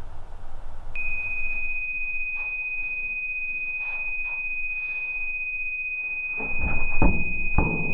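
A steady, high-pitched electronic tone sounds as the countdown timer runs out. It starts about a second in, just as a hiss fades, and holds unbroken. Near the end come several heavy low thuds.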